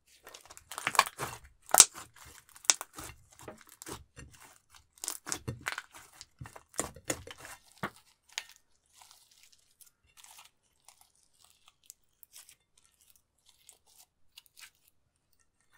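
Clear slime mixed with eyeshadow being stretched and folded by hand, giving a dense run of sticky crackles and pops, loudest about two seconds in. After about eight seconds it thins to faint scattered clicks.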